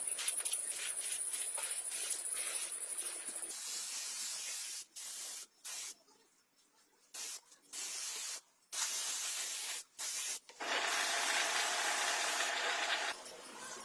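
A rough rubbing or scratching noise, then repeated bursts of spraying hiss that start and stop: several short bursts, then one longer burst of about two seconds near the end.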